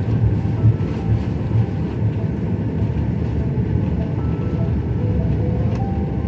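Airbus A330 cabin noise: a steady low rumble as the airliner rolls on the ground after landing.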